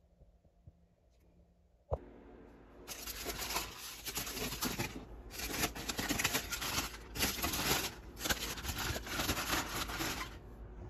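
Aluminium foil crinkling and rustling as it is pulled off a roasting pan, in several loud stretches with short breaks. A single sharp knock comes about two seconds in, before the crinkling starts.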